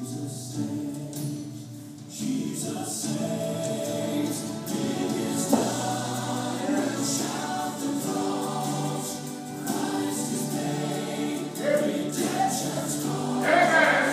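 Gospel music with a choir singing.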